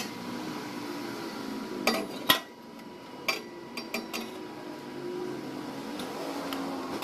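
A handful of short, sharp metallic clinks and taps as a stainless steel exhaust pipe and a welding torch are handled, the loudest about two seconds in and a quick cluster a little later, over a steady background hum.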